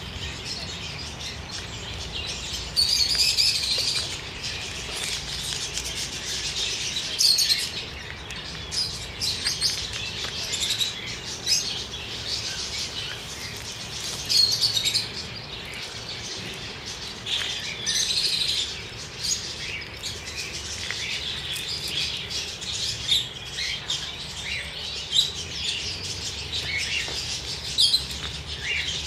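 Small birds chirping and twittering in quick high notes throughout, with louder bursts of chirps every few seconds.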